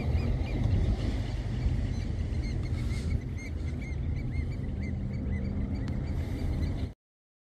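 Birds chirping over and over in short calls above a steady low rumble of wind or surf. The sound cuts off suddenly about a second before the end.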